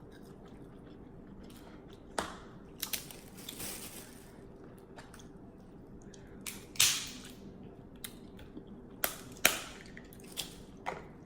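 Close-up eating sounds: snow crab shells cracking in sharp snaps, several times, with chewing between them.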